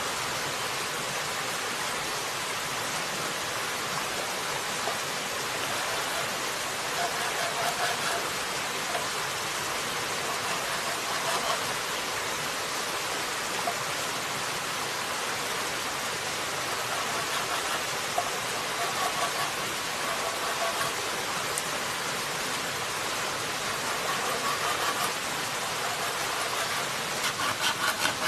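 A steady rushing hiss throughout, with a few light scrapes of a blade on green bamboo. Near the end a long knife starts sawing across a bamboo tube in quick, rhythmic strokes.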